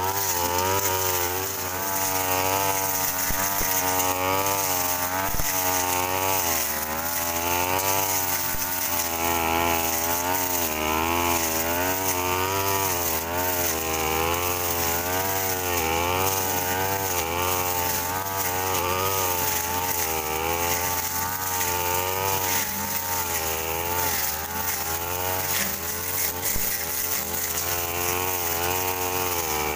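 Two-stroke backpack brush cutter running while slashing undergrowth, its engine note rising and falling over and over as the blade meets and clears the weeds.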